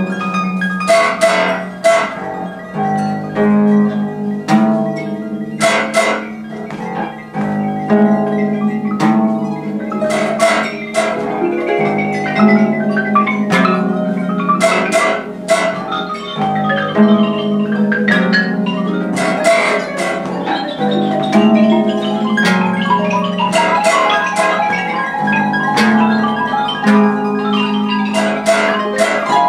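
Free improvisation for two pedal harps and marimbas: plucked harp notes and mallet strikes on wooden bars, many overlapping ringing notes with no steady beat.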